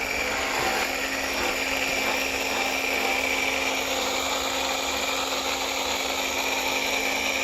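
Small portable 320 psi pressure washer running steadily, its pump motor whining under the hiss of the spray. It cuts off at the very end.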